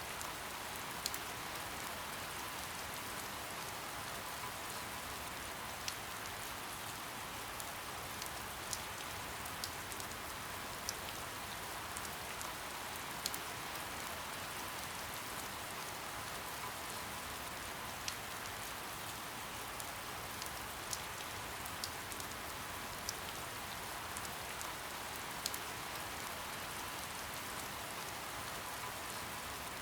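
Soft, steady rain: an even hiss with individual drops ticking sharply now and then at irregular intervals.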